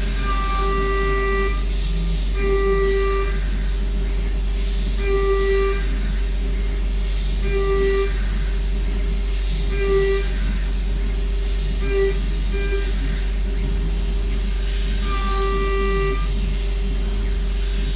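Homemade CNC router milling with a 6 mm three-flute end mill, the spindle running at high speed with a steady whine. About every two to three seconds a higher ringing tone swells in for a second or so as the cutter bites on each pass.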